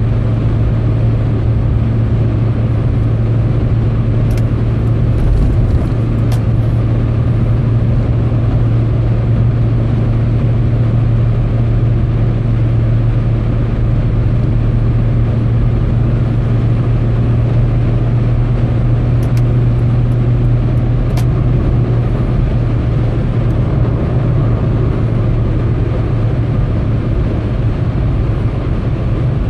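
Steady cabin drone of a car cruising at motorway speed: road and engine noise with a strong low hum, picked up by a phone microphone inside the car. A few faint ticks come about 4 to 6 seconds in and again about 19 to 21 seconds in.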